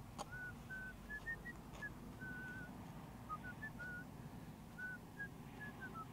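Soft whistling: a slow run of short, clear notes stepping up and down like a tune, with a faint click just as it begins.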